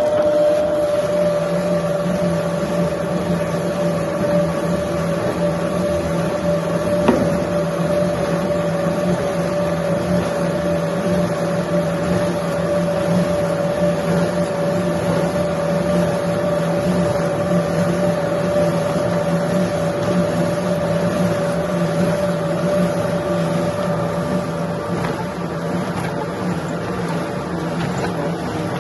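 A machine's motor running with a steady, even hum that holds the same pitch, with a single short knock about seven seconds in.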